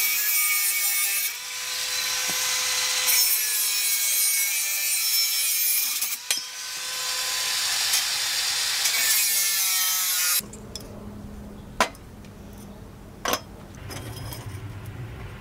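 Angle grinder with a cut-off disc cutting through square metal tube: a loud grinding hiss over a steady motor whine, in two passes with a brief break about six seconds in. It stops suddenly about ten seconds in, leaving a low hum and two sharp clicks.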